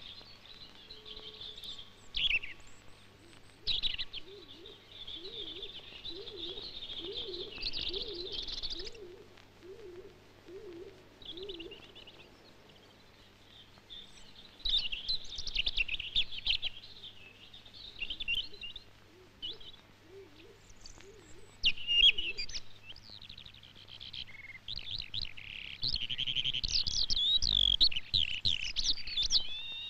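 Wild songbirds chirping and singing in bouts of quick high trills, busiest and loudest near the end. Under them a lower warbling call repeats over and over, stopping about two-thirds of the way through.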